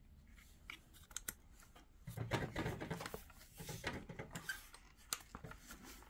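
Faint scattered clicks and light knocks, with short stretches of rustling about two to four seconds in: an RC truck's plastic and metal parts being handled and turned over.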